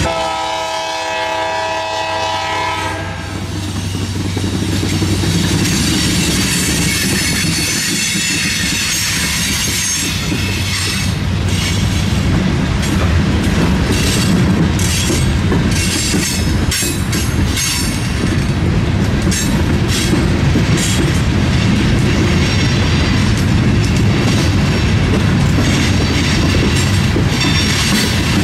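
Diesel freight train passing: a multi-chime locomotive air horn sounds and cuts off about three seconds in, then the train rolls by with a steady rumble and wheels clicking over the rail joints.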